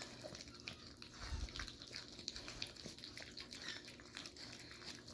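Puppies lapping and smacking at soft puppy mush, a quiet, irregular patter of small wet clicks with a few soft thumps.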